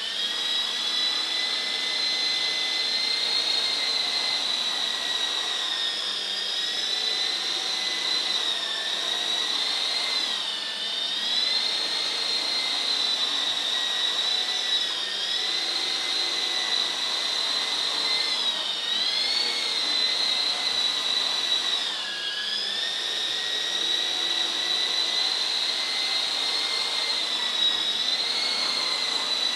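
Small electric coaxial RC helicopter's motors and rotors whining steadily at near-hover throttle. The pitch dips briefly and recovers a few times as the motor speed changes with the pilot's stick inputs, most clearly about ten, nineteen and twenty-two seconds in.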